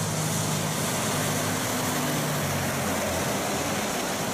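MAN road tanker truck with trailer driving past on a wet road: a steady diesel engine drone under a constant hiss of tyres on wet tarmac.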